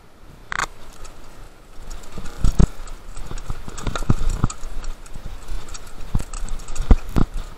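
Mountain bike clattering down a rough dirt trail: irregular knocks and thuds from the wheels, suspension and chain as it hits bumps and roots, a few sharp hits louder than the rest.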